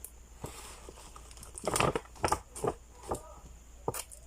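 Gift wrapping crinkling and tearing in irregular bursts as a present is unwrapped, loudest about two seconds in.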